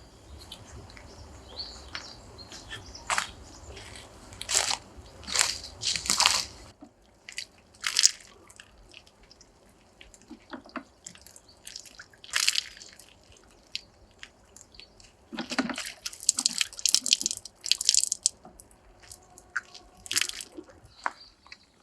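Light rain beginning to fall: scattered irregular drips and taps, mixed with brief rustles.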